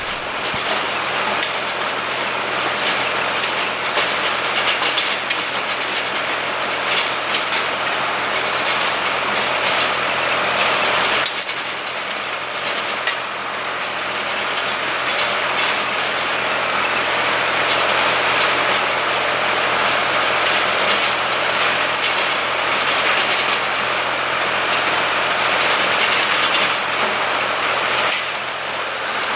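A farm tractor's engine running steadily under load while it pulls a plowing implement through dry ground, with continuous clattering and rattling from the implement.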